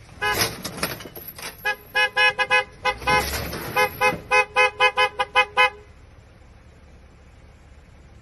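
Car horn honked in a long run of rapid short blasts, about four a second, cutting off abruptly after about six seconds.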